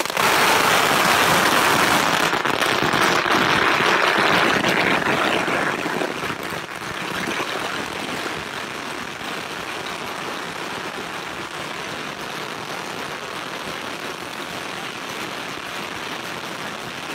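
A long string of firecrackers going off in a continuous rapid crackle of small bangs, starting suddenly and loudest over the first six seconds or so, then carrying on somewhat quieter.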